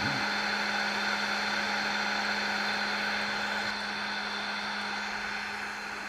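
Wood lathe running steadily with a constant hum and a hiss of motor noise, dropping slightly in level about four seconds in.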